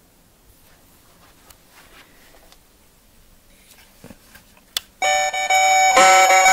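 Faint clicks, then one sharp click just before the five-second mark. An electronic Christmas Santa figure then starts playing a chiming tune in held notes that step from one pitch to the next, much louder than the clicks.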